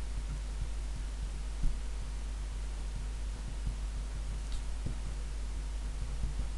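Steady low electrical hum with a few faint, soft taps.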